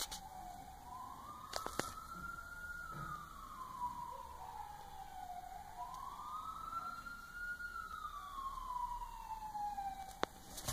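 Emergency vehicle siren wailing: one tone rises fairly quickly, then falls slowly, twice over. A few soft clicks sound alongside it.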